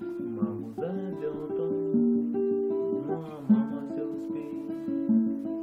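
Acoustic guitar being played, chords ringing and changing about a second in and again about three seconds in.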